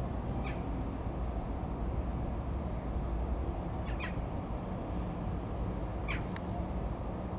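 Short, sharp bird calls: one about half a second in, a pair near four seconds, and a quick cluster around six seconds. Under them runs a steady low rumble.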